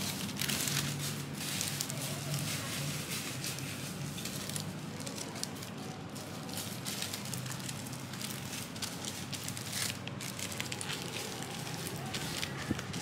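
Crinkling and rustling of a thin wrapping sheet as gloved hands fold it around a peeled durian pod, irregular and continuous, over a steady low hum.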